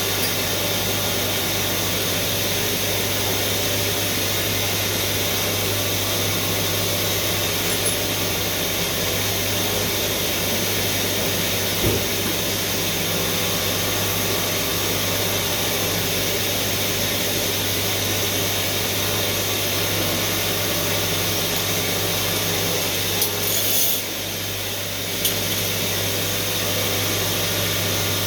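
CNC machine tool running steadily with a constant hum and whir, with a single sharp click about twelve seconds in and a brief drop in the noise with a couple of clicks a little before the end.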